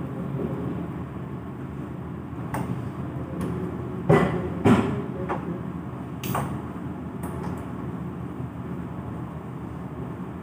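Metal cooking utensils knocking and clinking against a dosa tawa as ghee is spread over the dosa, a few scattered knocks with the loudest pair a little after four seconds in, over a steady low kitchen hum.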